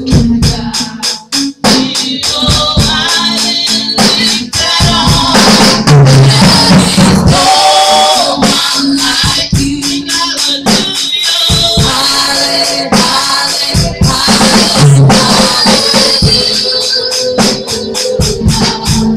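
Live gospel worship music: women singing into microphones through a PA over an electronic keyboard, with a fast steady beat of shaken percussion.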